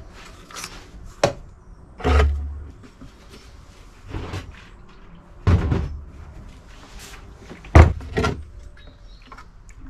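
Knocks and clunks of containers being handled on a workbench: a plastic fuel-mixing bottle and funnel being set up, then a fuel can with a spout being picked up. About six separate knocks, the loudest near the end.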